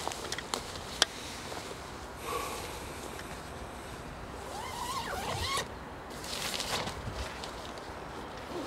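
Zipper on the door of a Quechua MH100 Fresh & Black camping tent being zipped shut, with a few clicks and rustles of the tent fabric. The main zip is one long pull starting about two seconds in, and a shorter one follows near the end.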